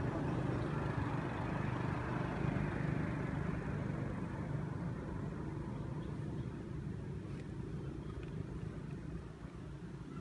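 Motor vehicle engine running, a steady low hum that fades a little near the end.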